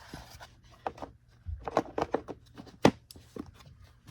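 Clicks and knocks of a Bissell Cleanview upright vacuum's plastic housing and motor being handled and pressed into place by hand. There is a duller thump about one and a half seconds in, and the sharpest knock comes a little before three seconds in.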